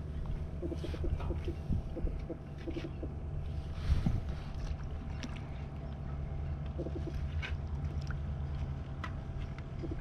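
A steady low engine hum, with a few faint ticks over it.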